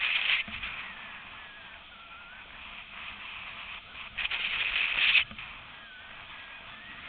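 Steady rushing hiss of longboard wheels rolling fast down asphalt, with wind on the microphone. The rush swells loudly right at the start and again for about a second around four seconds in.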